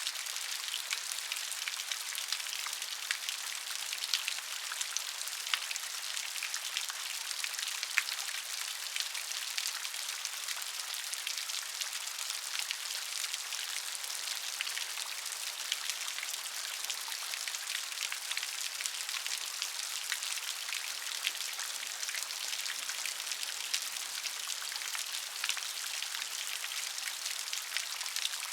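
Rain falling steadily, with many individual drops pattering sharply on a surface over a constant high hiss.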